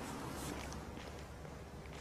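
Footsteps of a person walking on a paved footpath, a few separate steps at walking pace over a low steady rumble.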